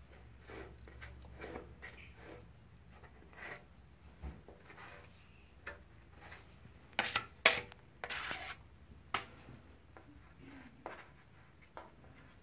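Metal putty knife scraping and pressing gypsum joint compound into a cornice corner joint: a run of short scraping strokes, the loudest a quick cluster about seven to nine seconds in.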